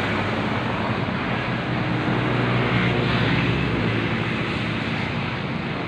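Steady motor-vehicle noise: a low, even engine hum under a rush of road and wind noise.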